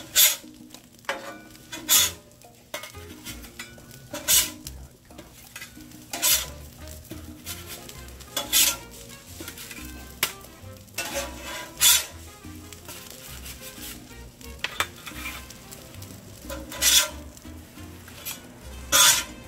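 Metal spatula scraping across the steel top of a Blackstone flat-top griddle as slices of French toast are lifted off, about eight short strokes a couple of seconds apart, over a light sizzle.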